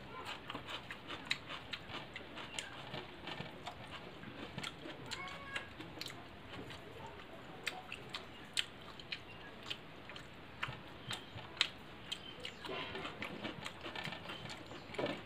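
A man eating rice and curry with his hand: close-up chewing and wet mouth sounds made of many small irregular clicks, along with the squish of rice being mixed with curry on a steel plate.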